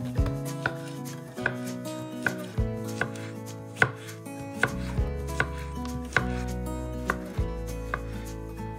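Chef's knife slicing a zucchini into thin half-moons on a wooden cutting board: a steady series of sharp knocks of the blade on the board, roughly one every three-quarters of a second, over soft background music.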